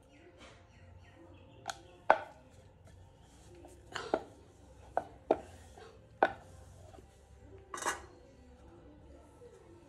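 Wooden rolling pin and wooden rolling board knocking while poori dough is rolled out: a run of sharp wooden knocks, the loudest about two seconds in, then a short rattling scrape near the end.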